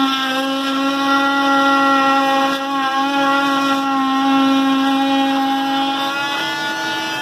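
Milwaukee M18 cordless oscillating multi-tool running, a steady high-pitched buzz whose pitch shifts slightly about six seconds in.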